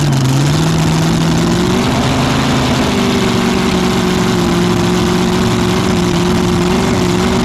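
Mini rod pulling tractor's racing engine running at a low, fast idle, heard from on board, its pitch stepping up a little over the first two seconds and then holding steady.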